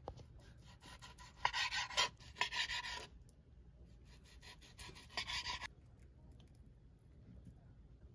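Kitchen knife sawing through a seared beef steak on a cutting board: scraping strokes for a couple of seconds, then a shorter spell of strokes about five seconds in.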